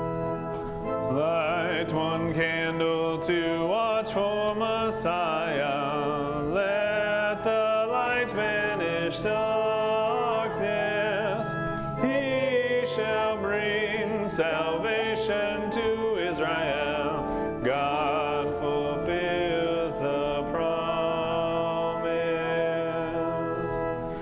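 Congregation singing a hymn to organ accompaniment, the organ's steady held chords under the voices.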